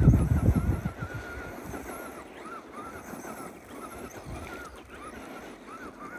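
Traxxas Rustler RC truck tearing across loose gravel: a loud burst of spinning tires and spraying gravel at the start, then the electric motor's thin whine wavering up and down with the throttle as the truck drives off.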